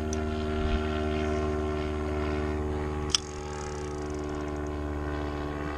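Steady drone of a nearby motorboat's engine, its pitch unchanging, with one sharp click about three seconds in.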